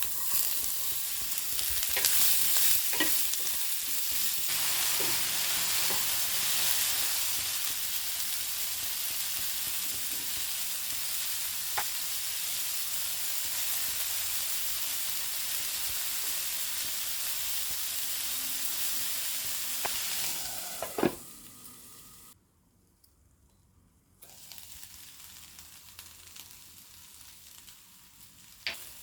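Food frying in hot oil in a pan, sizzling steadily while being stirred, with occasional knocks of the spatula against the pan. The sizzling stops about 21 seconds in. After a couple of seconds of quiet, a fainter sizzle starts again.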